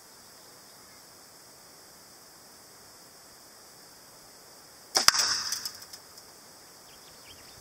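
Arrow tipped with a 225-grain VanDieman broadhead striking a steel refrigeration compressor about five seconds in: one sudden loud crack of impact that rings on briefly and fades over about a second.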